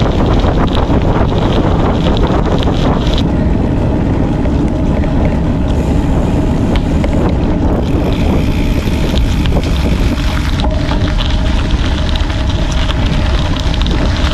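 Heavy wind rushing over the microphone while riding a gravel bike: a loud, steady, deep rush.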